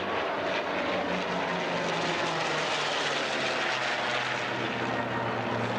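Aircraft flying a demonstration pass at an airshow: a loud, steady engine drone with a low tone that slowly falls in pitch.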